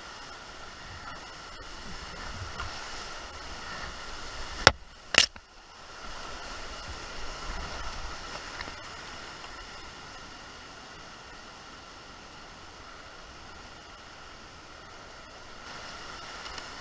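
Fast, muddy flood water rushing steadily around a whitewater canoe as it is paddled downstream. A few seconds in, two sharp knocks about half a second apart stand out as the loudest sounds.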